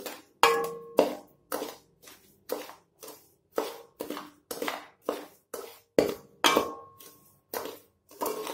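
Long metal spoon stirring dry granulated sugar in a stainless steel pan, scraping and knocking against the metal about twice a second, some strokes leaving a brief metallic ring. The sugar is still dry, being stirred over low heat to melt it into caramel.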